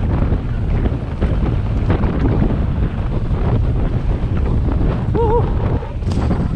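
Heavy wind buffeting on the camera microphone from a bike riding fast down a rough dirt trail, with the rattle and knocks of the bike over bumps. There is a short wavering squeal about five seconds in and a sharp click near the end.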